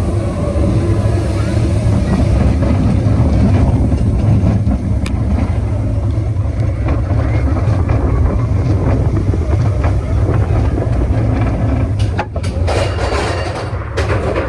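Steady low rumble of a vehicle in motion, heard from on board, with a few brief clatters near the end.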